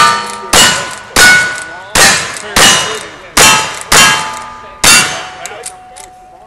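Lever-action rifle fired in quick succession, about eight sharp shots roughly two-thirds of a second apart with a slightly longer gap before the last. Each shot is followed by the ring of a struck steel target, the rings at different pitches from plate to plate.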